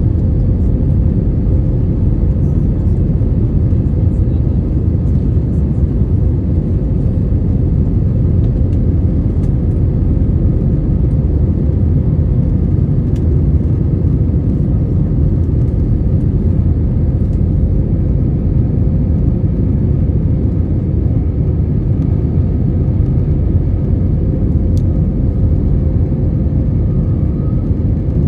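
Airbus A321neo in flight after takeoff: a steady, loud low drone of engines and airflow with a faint constant hum above it, unchanging throughout.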